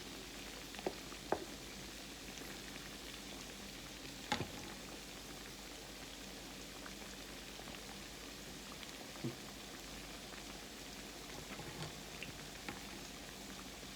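Croquettes frying in a pan of grease: a steady low sizzle with a few sharp pops, the loudest a little over four seconds in. The grease is not yet fully hot, so the frying is gentle.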